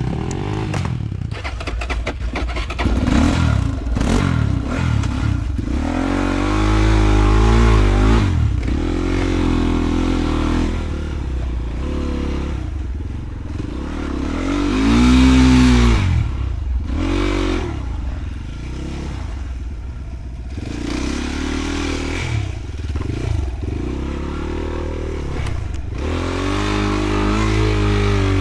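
Enduro motorcycle engine revving up and down over and over as the throttle is worked off-road, loudest about halfway through.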